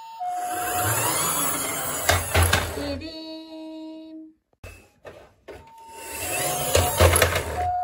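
Toy ambulance's electronic two-tone siren, heard briefly at the start and again near the end. Between these come two long stretches of loud rumbling noise from the toy's plastic wheels rolling over wooden boards, with a few sharp knocks as it bumps into a block.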